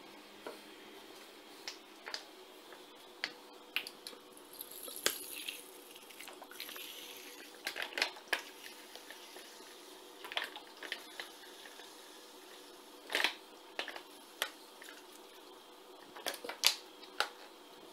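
Fish sauce pouring from a bottle into a plastic measuring cup, with scattered short clicks and knocks from handling the bottle and cup.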